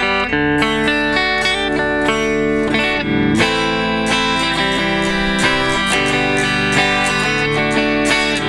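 Ibanez RC720 electric guitar played on its neck Core-Tone humbucker with a clean amp tone. Picked chords and single notes ring out with a warm, bluesy sound.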